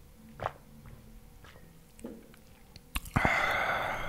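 Close-miked swallowing of a soft drink from a glass mug, a few quiet gulps, then a loud, breathy exhale about three seconds in that fades out.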